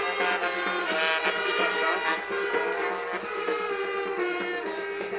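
Brass band playing a tune live, horns holding notes that move in steps.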